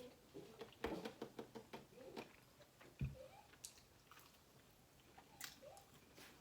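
Faint chewing and small clicking mouth noises of people eating chicken nuggets, with a low thump about three seconds in.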